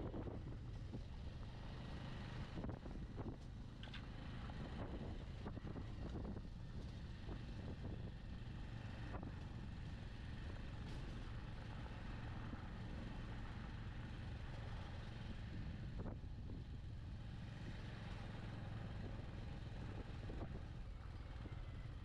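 Bajaj Avenger 160 Street motorcycle's single-cylinder engine running at a steady pace on the move, a low steady hum under a rush of road noise.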